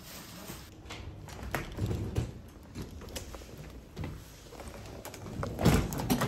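Footsteps and the rustle of a backpack as someone walks out through a hotel room doorway, with scattered light knocks and one louder thump near the end.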